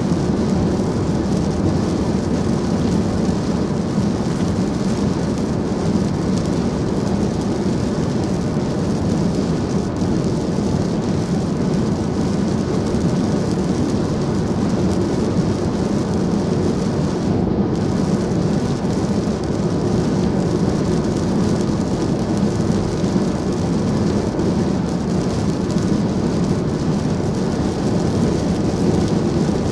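Steady road and tyre noise of a car driving at highway speed on wet pavement in the rain, heard from inside the cabin.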